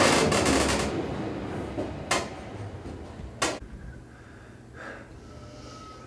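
Elevator car travelling downward: a loud hiss fades out in the first second, two sharp clicks come a little over a second apart, and then a low steady hum remains.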